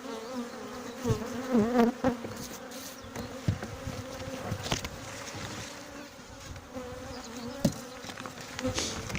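Buckfast honeybees buzzing around an opened hive: a steady hum whose pitch wavers. A few short knocks are heard through it.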